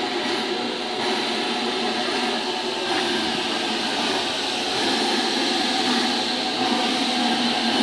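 Steam locomotive moving slowly past at close range, giving a steady hiss of steam with no distinct chuffs.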